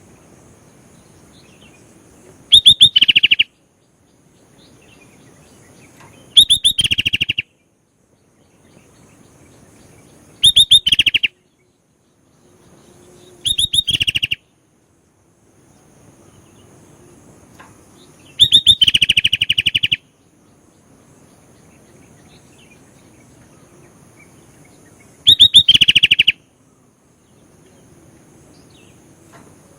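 Sooty-headed bulbul (kutilang) singing loud, rapid bursts of chattering notes, each about a second long, six times with pauses of a few seconds between.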